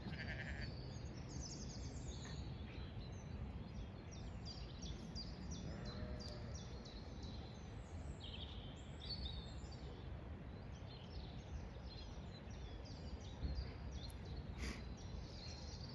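Songbirds singing and chirping, many short calls overlapping throughout, over a faint low steady outdoor background noise.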